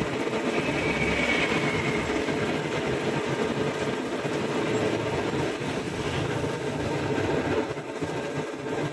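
Steady mechanical rumble with a faint hum running underneath and a brief higher tone about a second in.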